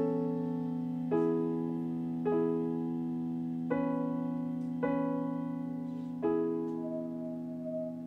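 Live music: slow piano chords, each struck and left to ring out, about every second and a quarter, over a steady held low note.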